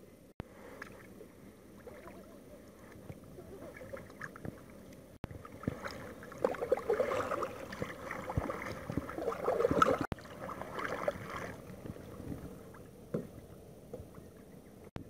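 Water lapping and splashing against a kayak's hull, an uneven sloshing that grows busiest and loudest through the middle. It breaks off for an instant a few times.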